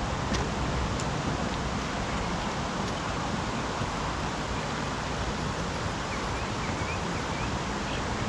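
Steady wind noise buffeting the microphone, with a couple of faint clicks near the start and a few faint short high chirps about six to seven seconds in.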